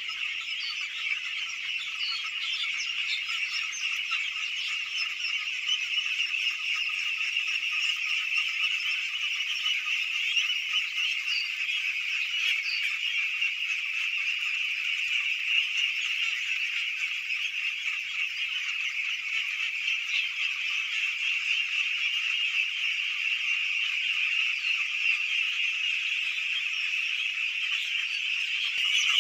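A large flock of young domestic ducks calling all at once: a dense, steady, high-pitched chorus of overlapping calls with no break.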